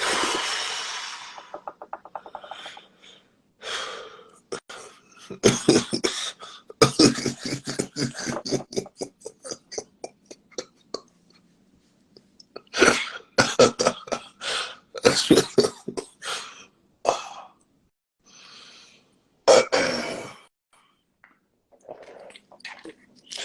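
A man laughing hard in several fits, the laughter breaking into coughing and throat clearing.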